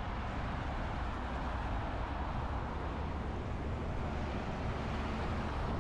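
Steady rumble of road traffic passing along a busy city street, with no single vehicle standing out.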